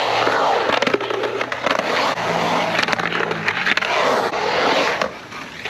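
Skateboard wheels rolling over concrete: a continuous rumble that swells and eases, ending in a sharp clack near the end.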